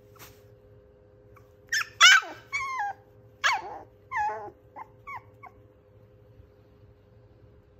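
Pomeranian puppy crying: a run of about seven high-pitched whiny yelps, most sliding down in pitch, starting about two seconds in with the loudest, then shorter and fainter ones tapering off just past halfway.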